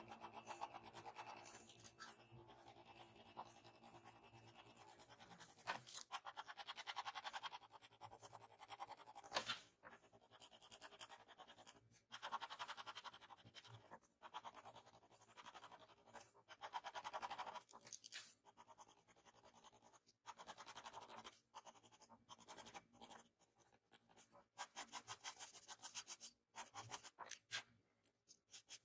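Pencil scratching on paper in quick, short strokes, coming in bursts a second or two long with brief pauses between. The strokes fade out near the end.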